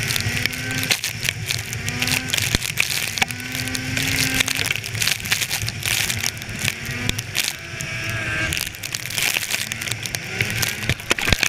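Polaris snowmobile engine running at trail speed, its pitch climbing in short rises several times as the throttle is worked, over a steady rush of wind and snow spray with scattered sharp ticks.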